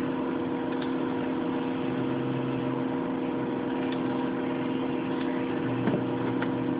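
A steady machine hum with several fixed tones over an even background noise, joined by a few faint clicks.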